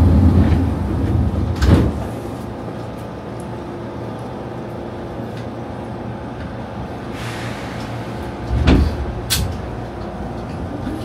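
Electric commuter train at a station stop. A heavy low rumble settles early on, then a steady hum with faint motor tones. There is a sharp thud about two seconds in and another near the end.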